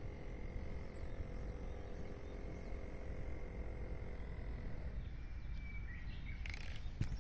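Outdoor ambience: a steady low rumble like wind on the microphone, a faint steady hum that stops about four seconds in, and a thin high chirping tone. A few sharp clicks come near the end.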